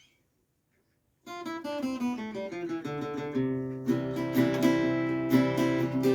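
Kremona Zornitsa acoustic guitar: after about a second of silence, a descending run of single plucked notes, then repeated strummed chords ringing on.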